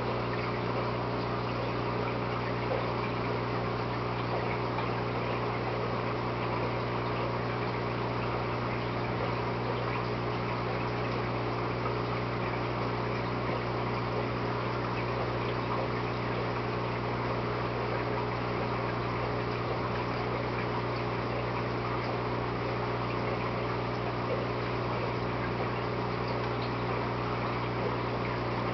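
Aquarium water pump running steadily in a fiddler crab's tank: a constant low hum over the wash of moving water.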